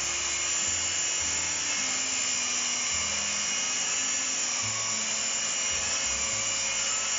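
Electric long-reach drywall sander running steadily, its spinning disc sanding filler on a plasterboard ceiling: an even motor whirr with a faint high whine.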